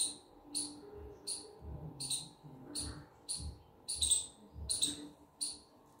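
Short, high-pitched chirps repeating evenly, about one and a half a second, over low pulsing sounds that keep the same steady beat.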